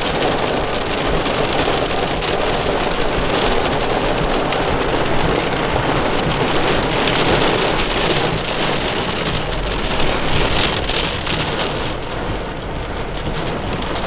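Heavy thunderstorm rain pounding on a car's roof, a loud, steady dense hiss with scattered sharper drop hits.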